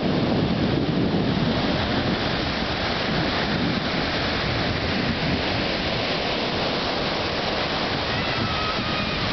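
Ocean surf breaking and washing through the shallows in a steady rush, with wind on the microphone.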